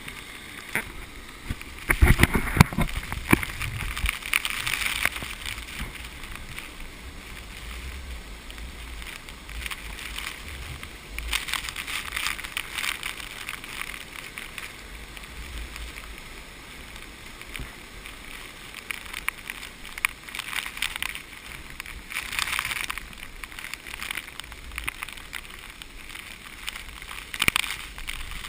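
Wind buffeting the microphone in gusts, with uneven low rumbling and several hissing surges, over a steady rush of falling water from a waterfall.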